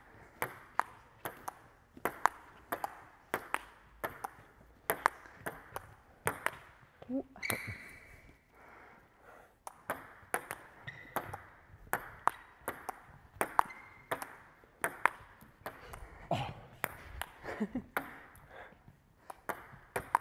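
Table tennis rally: the plastic ball clicking off the bats and the table in quick alternation, about two to three hits a second, with a short lull about eight seconds in.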